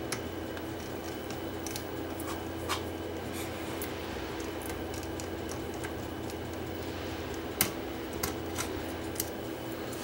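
Scattered small metallic clicks and taps of a screwdriver and loose parts as the pinch roller is taken off a Sony CV2000 reel-to-reel video recorder, the sharpest click about three quarters of the way through, over a steady low hum.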